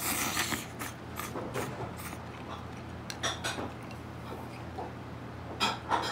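Ramen noodles slurped in a short hissing draw, then a few light clicks and clinks of chopsticks and a ceramic spoon against a porcelain ramen bowl.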